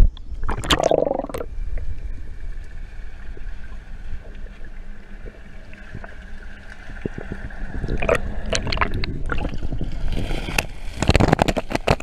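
Water moving around the camera's microphone, with scattered clicks and knocks. Louder bursts come about a second in and again over the last two seconds, and a faint steady tone runs through the middle.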